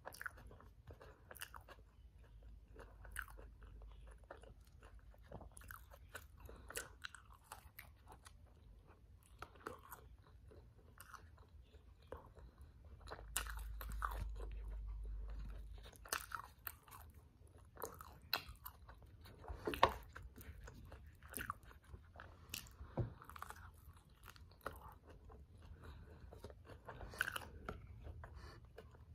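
Close-miked chewing and biting of a toasted tortilla wrap filled with black beans, lettuce and vegetables: many short crisp crunches and wet mouth clicks. A low rumble runs for about three seconds in the middle.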